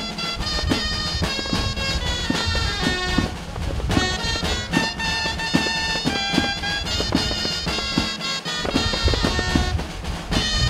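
Dulzaina (Castilian shawm) and drum playing a lively jota, a nasal reed melody over a steady drum beat.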